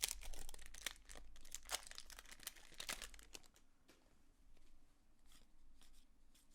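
Baseball cards being handled and flipped through, with the paper crinkling and rustling of the card pack. There is a dense run of short scrapes and crinkles for about the first three and a half seconds, then only a few scattered clicks.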